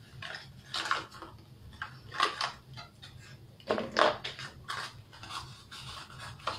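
Crinkling and clicking of a small food coloring box and its plastic wrapping being handled and opened by hand, in irregular bursts of crackle.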